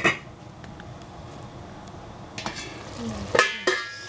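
Minced meat frying with a steady sizzle in a large stainless steel stockpot. A metal lid or utensil clanks against the pot at the start and again a few times near the end as the lid comes off.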